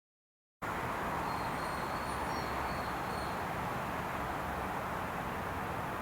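Dead silence, then about half a second in a steady outdoor background noise cuts in abruptly, with a few faint, high, short chirps over it.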